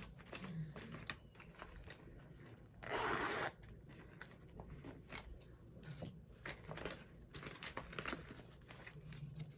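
Small items being handled: light rustling and scattered clicks, with a louder half-second burst of rustling or tearing about three seconds in.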